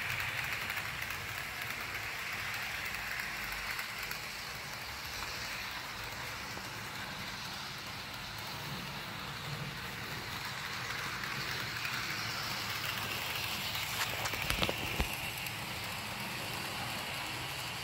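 HO scale model locomotive hauling three cabooses around the track, a steady rattling hiss of metal wheels on rail and the small motor's whir that swells and fades as the train moves around the layout. A few sharp clicks come about fourteen seconds in.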